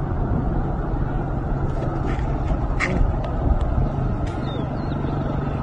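Steady low roar of a large fuel-tanker fire, with a constant low hum underneath and a few sharp pops about three to four and a half seconds in.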